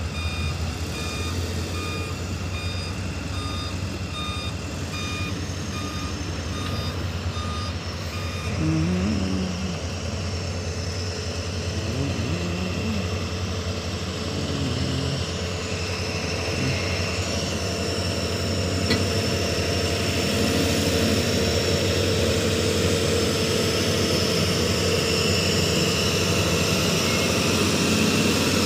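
Tata tipper truck's reversing alarm beeping at an even pace over its running diesel engine. The beeps stop several seconds in, and the engine runs on, growing louder in the second half as the tipper body is raised to dump its load of fly ash.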